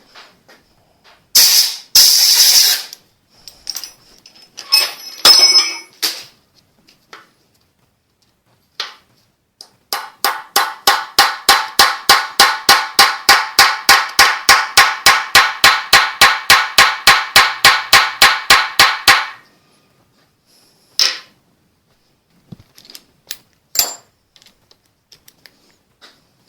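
Rapid, evenly spaced metal-on-metal strikes, about five a second for some nine seconds, from tool work on a broken stud remnant in a Ford flathead V8 block. Earlier, two short harsh bursts of tool noise, and a few single knocks near the end.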